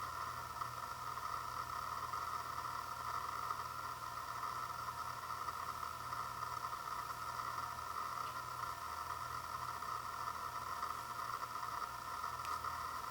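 Steady background hum and hiss with fixed pitches, with one or two faint clicks.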